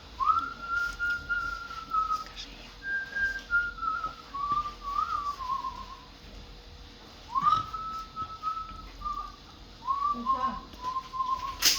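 A man whistling a melody by mouth in phrases of held notes that slide from pitch to pitch, with short pauses between phrases. A sharp click sounds near the end.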